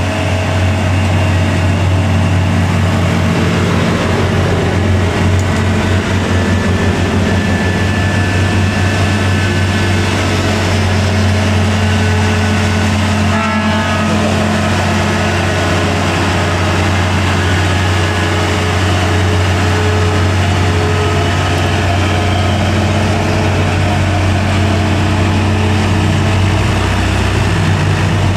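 Hino 500 truck's diesel engine pulling hard under load up a steep climb: a loud, steady deep drone held at nearly constant revs.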